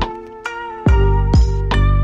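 Background music: plucked melody notes over a deep bass that hits about twice a second.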